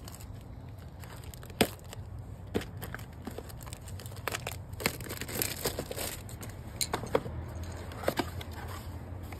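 Hands handling a new motorcycle carburetor and its small parts: scattered light clicks and taps, with crinkling in between like plastic packaging.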